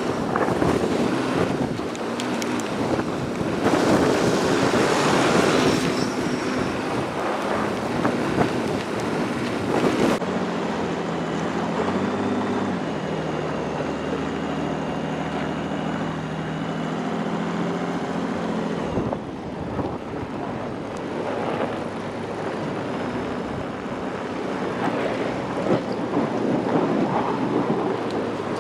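Wind rushing across the microphone, mixed with a vehicle engine running steadily. The sound changes abruptly about ten seconds in and again about nineteen seconds in. In the middle stretch a steady low engine hum is clearest.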